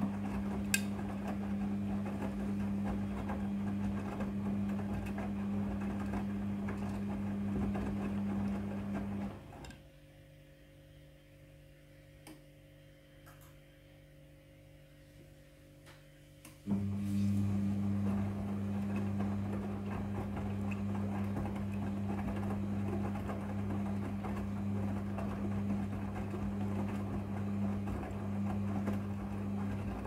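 Midea front-loading washing machine tumbling a wash load: a steady motor hum with wet laundry turning in the drum. About nine seconds in, the drum stops and the sound falls away for about seven seconds, then the motor starts again abruptly and tumbling resumes, the stop-and-go pattern of a wash cycle.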